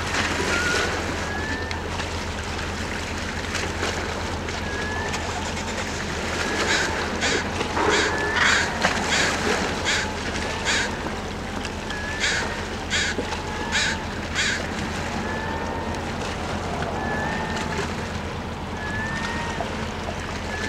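Steady low drone of the departing ferry Chetzemoka's engines across the water. Over it, a crow caws in two runs of about a dozen harsh calls in the middle, with faint short chirps throughout.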